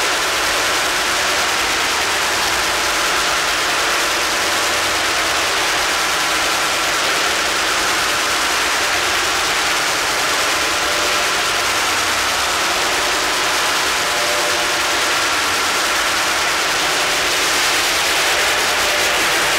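Noise music: a steady, dense wall of electronic noise and feedback, with faint held tones underneath, growing slightly louder and brighter near the end.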